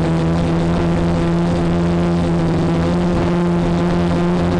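Quadcopter motors and propellers humming steadily at hover, the pitch creeping slowly upward.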